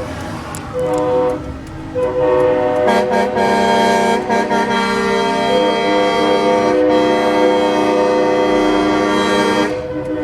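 Several semi-truck air horns blowing at once, their steady notes layered into a chord. A short blast comes about half a second in, then the horns are held from about two seconds in until near the end.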